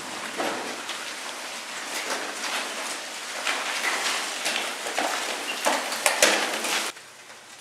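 Mountain bikes being ridden and pushed over a gravel and dirt track: a dense crackle of tyres on loose stones, with many small clicks and rattles from the bikes. The sound drops off sharply near the end.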